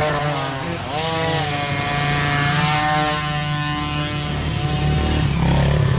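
Small micro dirt bike engines revving as the bikes ride up the trail, more than one engine heard at once with a high, buzzy note. One engine's pitch swings up and back down about a second in, then holds steady, and a deeper engine sound grows louder near the end as a bike comes close.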